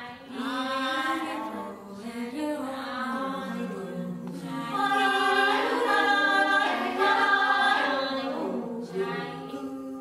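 Several voices singing unaccompanied in overlapping held and gliding calls, a vocal composition that imitates the calls of different seabird species in cliff colonies. The singing grows louder about halfway through.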